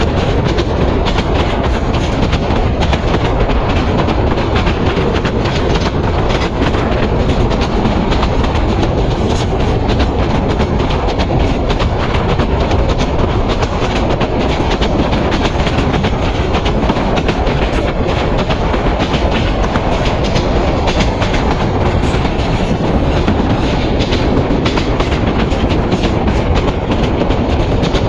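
Indonesian-built PT INKA passenger coaches of an express train running at speed, heard from an open coach window: a loud steady rumble of wheels on the rails with frequent clicks of the wheels over the rail joints.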